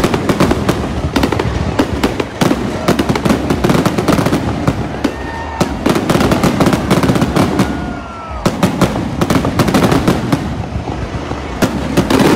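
Aerial fireworks shells going off in a dense barrage: rapid, overlapping bangs and crackling, with a couple of short falling whistles about halfway through and a brief lull near two-thirds in.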